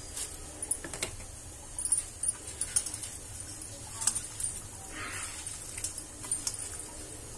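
Irregular light clicks and clinks of bangles and a ring knocking against a steel bowl as a hand mashes and mixes boiled potatoes, with a soft squish about five seconds in.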